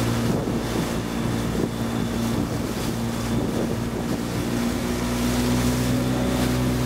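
A boat's engine running steadily, with wind blowing on the microphone.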